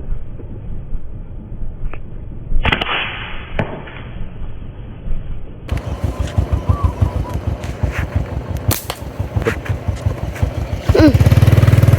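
Small motorcycle engine running with a rapid low pulsing, becoming loud and steady about a second before the end. Earlier there are scattered thumps and handling noise.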